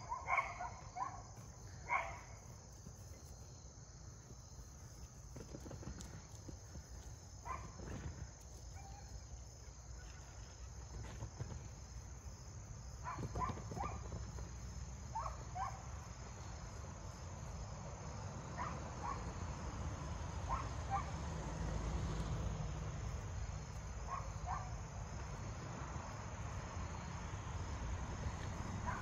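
Steady, high-pitched chorus of insects trilling continuously, over a low rumble that grows louder in the second half.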